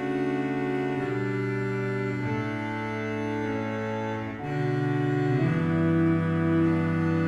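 Church organ playing slow, sustained chords that change every second or so.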